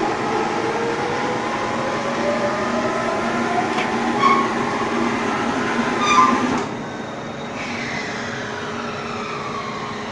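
Rice husk baling and bagging machine running: a steady mechanical noise with whining tones that slowly glide up and down. Two short sharp sounds come about four and six seconds in, after which it turns quieter.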